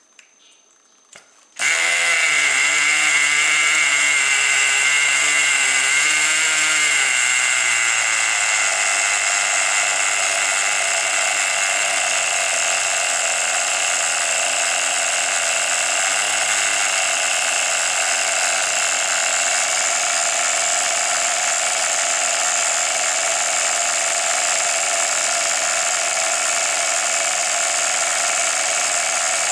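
Tamiya TGX 1/8-scale nitro RC car's glow engine starting up about two seconds in and then running steadily. It is loud and high-pitched, and its pitch wavers at first, then settles a little lower after several seconds.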